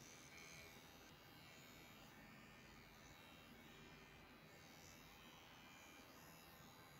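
Near silence with a faint, steady electric buzz.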